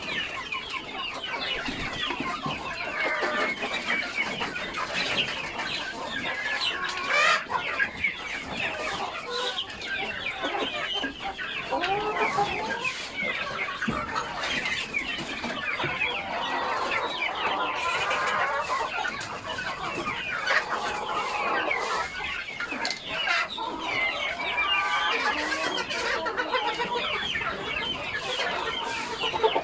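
A flock of chickens clucking and calling without pause, many birds overlapping, with scattered sharp clicks and knocks among them.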